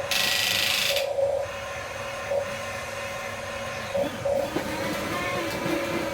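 Small electric motors and gearboxes of remote-control toy construction vehicles whirring in a steady whine with repeated swells, with a second-long hiss at the start.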